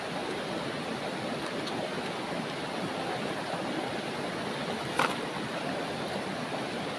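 Steady rush of a river flowing over rocks, with one sharp click about five seconds in.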